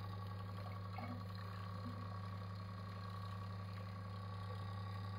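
Reverse-osmosis system's booster pump running with a steady low hum as it pushes water through the filter housings.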